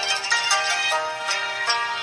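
A preloaded LG Voyager ringtone playing: a melody of quick, evenly paced notes, changing about every third of a second.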